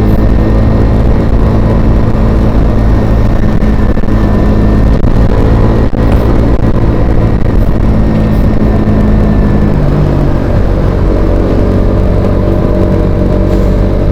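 Motor vehicle engine running steadily over road rumble, its note changing about ten seconds in.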